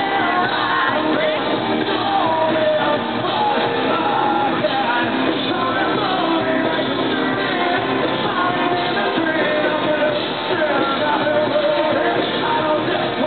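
Live rock band playing, with a male lead singer singing over electric guitar.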